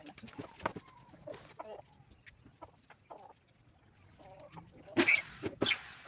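Scattered short animal calls, with two louder harsh calls about five and five and a half seconds in.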